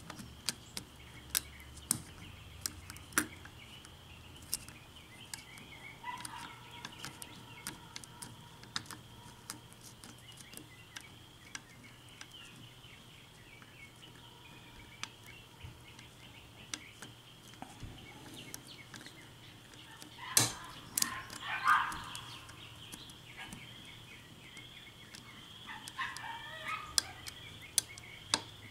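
Lock pick clicking and scraping against the pins of a six-pin Asec oval cylinder lock, with irregular small clicks as the picker probes and tries to set pins under tension, and a louder flurry of clicks about twenty seconds in. A few brief pitched sounds come through about twenty-one seconds in and again near the end.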